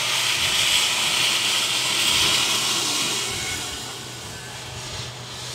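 Narrow-gauge steam locomotive hissing steam, loudest in the first few seconds and then easing off about three seconds in, with a steady low hum underneath.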